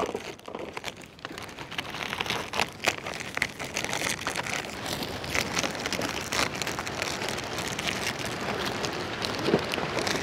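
Foil-lined Oreo cookie packets being torn open and crinkled, with the cookies spilling and clattering onto a heap: a dense, continuous crackle of small rustles and clicks.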